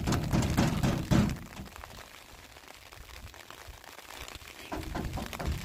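Hand knocking repeatedly on a metal door: a quick run of knocks in the first second or so, a pause, then another run near the end.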